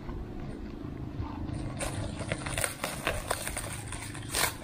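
Plastic packaging being handled and pulled at: scattered crinkles and clicks from about two seconds in, the loudest near the end, over a steady low hum.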